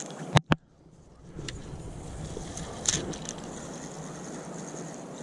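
Two sharp clicks about half a second in, then a spinning reel being cranked to retrieve a lure over a steady rushing noise, with one more brief click near the middle.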